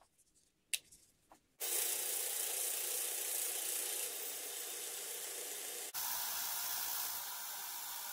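Belt grinder's abrasive belt grinding the steel of a table saw blade, a steady hiss that starts about a second and a half in after a near-quiet moment with a few light clicks.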